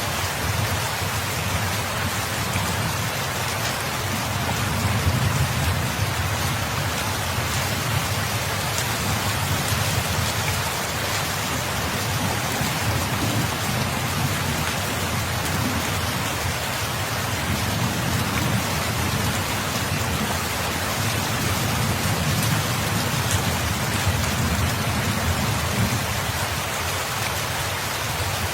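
Steady rain falling on a surface, an even dense hiss, with a low rumble that swells and fades underneath every few seconds.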